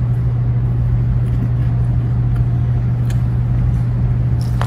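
Steady low droning hum, unchanged throughout, with a few faint clicks near the end.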